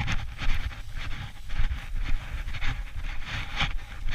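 Footsteps swishing through tall dry grass at a brisk walk, about two strides a second, with low wind and handling rumble on the microphone.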